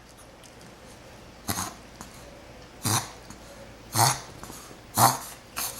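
Five short, sharp sneezes in a row, roughly a second apart, the last two coming closer together.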